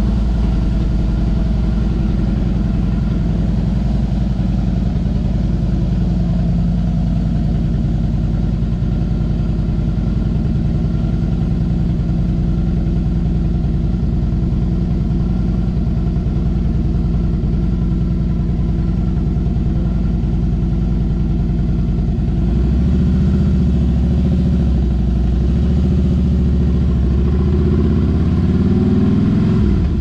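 Harley-Davidson V-twin engine running steadily at low revs, heard close up from the handlebar mirror. About two-thirds of the way in it revs up, the pitch climbing for several seconds as the bike pulls away, then drops sharply near the end.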